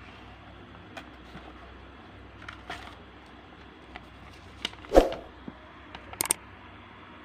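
Handling and unpacking noises: scattered light clicks and knocks of parts and packaging being moved. One louder thump comes about five seconds in, and a quick pair of sharp clicks follows shortly after.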